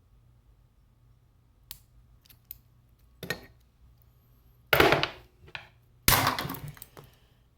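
Padlock and picking tools being handled: a few faint clicks, then three sharp metallic knocks, the last two the loudest and about a second and a half apart.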